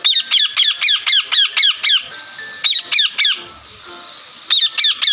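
Recording of a parrot calling: runs of short, loud calls, each falling in pitch, about four or five a second, in three bursts with brief pauses between them.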